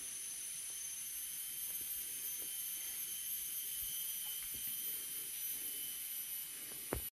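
Steady high-pitched drone of forest insects, with faint footsteps on a dirt trail underneath and a sharp click just before the end.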